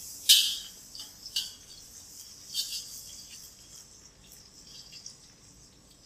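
Garlic frying in oil in a large pan with a faint sizzle, and a metal utensil knocking against the pan three times in the first three seconds, the first knock the loudest.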